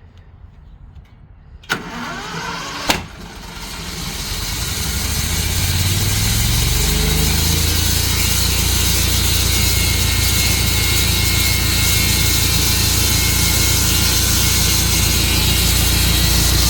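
Gasoline engine started: two sharp clicks, then the engine catches and revs up over a few seconds, settling into steady, loud running.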